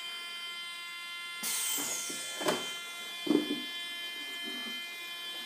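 Nose-gear retract mechanism of a model F-16 running for under a second as the nose gear swings down, then a sharp click. A faint steady whine sits underneath.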